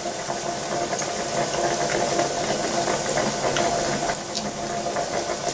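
Saucepan of potatoes boiling on the stove, a steady bubbling noise that does not let up, with a few faint clicks over it.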